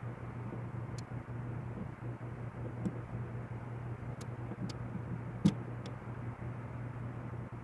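A steady low hum with a few small, sharp clicks or taps scattered through it, the loudest about five and a half seconds in.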